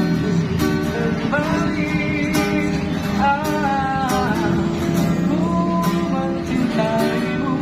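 A man singing a melody to acoustic guitar strumming, a street busker's live performance.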